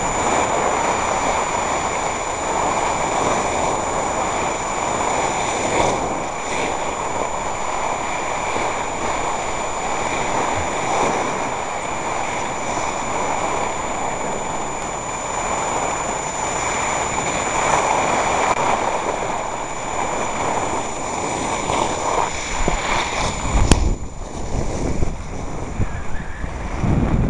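Steady rushing noise from skiing over snow: skis sliding and wind on the camcorder microphone. A sharp click comes near the end, followed by gusty low wind buffeting on the microphone.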